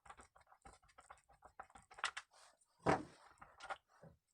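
Irregular small clicks and knocks of plastic and metal chainsaw parts being handled as a cover is taken off, with a few louder knocks about two and three seconds in.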